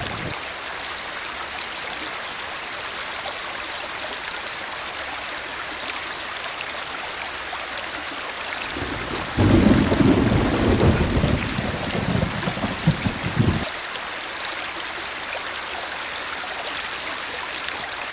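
Steady rushing water noise, with a louder, deeper stretch of about four seconds midway and a few faint short high chirps.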